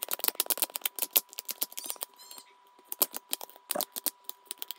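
Dust-absorber sticker dabbed again and again on the phone's glass screen: quick runs of small sticky ticks and clicks as it is pressed down and peeled off. The clicks come thick at first, thin out with a short lull near the middle, then pick up again.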